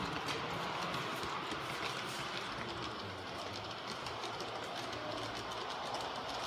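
LGB garden-scale model train rolling along its track: a steady running noise from the wheels and drive, with fine clicking over the rail joints, heard close up from on board the train.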